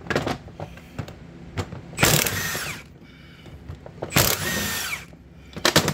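Milwaukee Fuel cordless impact wrench running in two short bursts, about two and four seconds in, breaking loose bolts on a brake caliper. Metal parts clink and knock around them.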